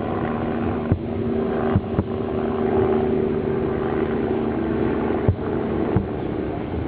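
Fireworks shells bursting: five sharp bangs, two close together about two seconds in and two more near the end, over a steady motor drone.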